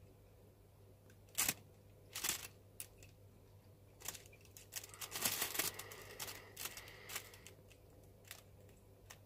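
Clear plastic bag crinkling and crackling as a white Java sparrow hops and rummages in it: a few separate crackles in the first couple of seconds, then a busier run of rustling from about four to seven and a half seconds in.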